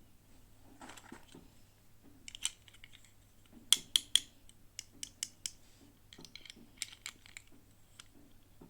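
Small hard plastic toy pieces and packaging being handled: a soft rustle, then a run of sharp clicks and taps, the loudest three in quick succession about four seconds in.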